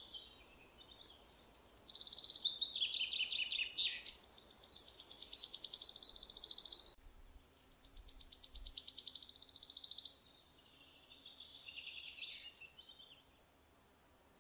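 Wood warbler singing: a run of high, quickening notes sliding down in pitch runs into a long, dry shivering trill. A second trill follows from about seven seconds in, then a softer run of falling notes near the end.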